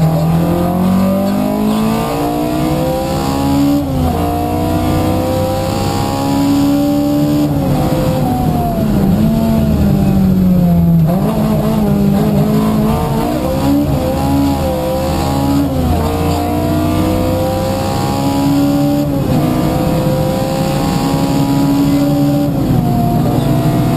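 Opel Kadett 2.0E rally car's four-cylinder engine heard from inside the cabin, revving hard and rising in pitch through the gears, with a drop in pitch at each upshift. Around the middle the engine note falls away low, then climbs through the gears again.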